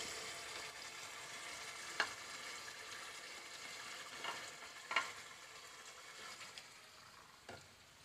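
Minced-meat and tomato masala, cooked down until the oil has risen, sizzling gently in the pan as fried bitter gourd is slid in from a plate. A few sharp clicks come from a slotted spoon scraping the gourd off the plate, about two, four and five seconds in. The sizzle fades near the end.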